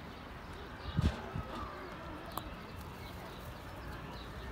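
A flock of domestic pigeons feeding on scattered grain: soft cooing and light ticks of pecking and shuffling, with one louder low thump about a second in.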